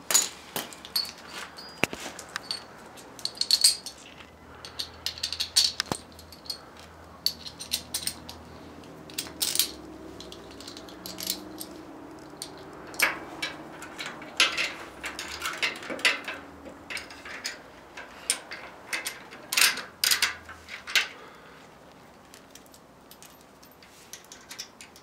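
Irregular metallic clinks and taps of a wrench, bolts and washers as a motorized bicycle's chain tensioner is fitted to the frame and its bolts tightened.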